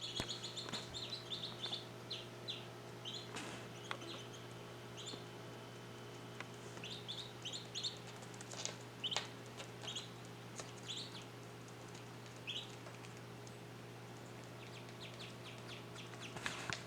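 Ducklings peeping: many short, high chirps in clusters, thinning out for a couple of seconds past the middle, over a steady low hum.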